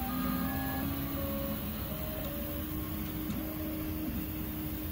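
Original Prusa i3 MK3 3D printer's stepper motors whining as the print head moves, a run of short steady tones that jump from pitch to pitch with each change of move while it lays crisscross infill, over a steady low hum.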